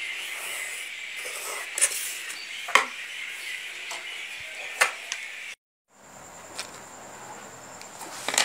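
A few sharp taps and knocks from a pencil and ruler being handled on a notebook, over a steady high hiss. The sound cuts out for a moment about two-thirds of the way in, then returns quieter with a faint hum.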